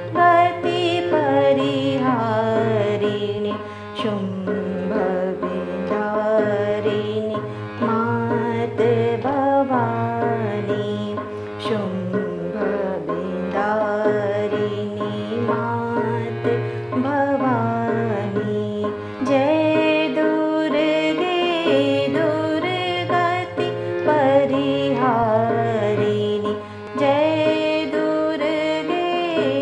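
Hindustani classical vocal singing the sthayi of a chhota khyal bandish in Raag Durga, with tabla keeping teen taal and a steady drone underneath.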